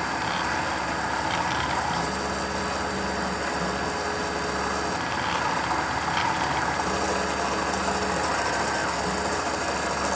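Home-built micro CNC machine running: a steady motor hum, with a low stepper-motor tone that starts and stops every second or two as the axes move.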